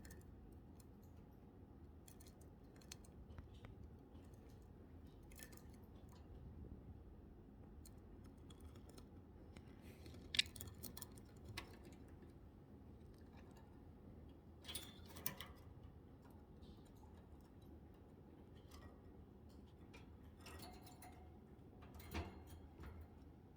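Budgie's beak nibbling and tapping: scattered soft clicks and snips over a quiet room, with a few sharper taps.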